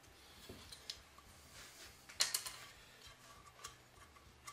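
A few faint clicks and knocks of small wooden blocks and strips being handled and set down, the loudest a little over two seconds in.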